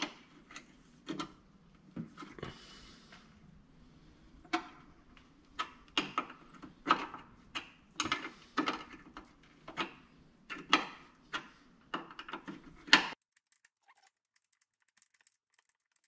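Irregular metallic clicks and taps as a steel brake line's fitting is handled and threaded into the brake hose end by hand, with a rag held underneath. The clicking stops abruptly about three seconds before the end.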